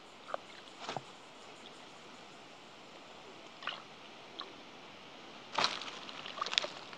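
A hand digging into wet mud and water in a crab hole, with scattered squelches and splashes. The loudest cluster comes near the end.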